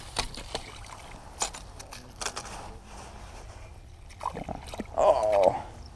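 Scattered sharp knocks and clicks of a fish and tackle being handled at a hole in the ice. They cluster about four seconds in as a crappie comes up through the hole, followed by a short wavering, voice-like cry about five seconds in.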